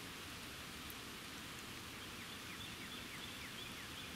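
Steady hiss of falling rain. About halfway through a bird starts a quick run of short, high, falling chirps, about four a second.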